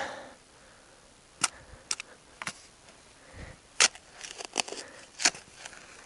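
Digging tool working soil, striking and scraping a hard object buried in it, which the digger takes for a big stone. About six sharp clicks come at irregular intervals, with soft scraping between them.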